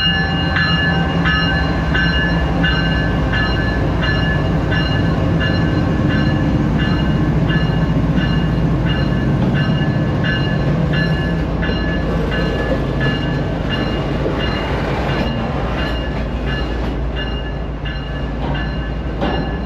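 Freight train passing at close range: diesel locomotive engines rumbling, with a bell ringing at a steady pace, about once every two-thirds of a second, over the rolling wheels. The ringing fades over the last few seconds as the freight cars roll by.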